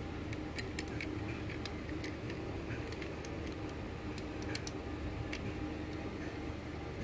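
Scattered light clicks and ticks of small parts being handled as an oil pump is fitted under a Juki industrial sewing machine, over a steady low hum.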